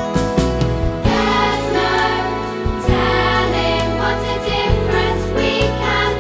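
Closing music: a song with singing voices over steady bass notes.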